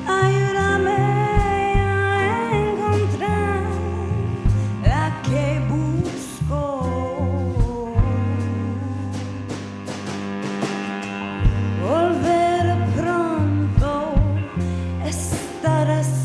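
Live band playing a song: drums keeping a regular beat under bass, guitar and cello, with a wavering melodic line gliding between notes.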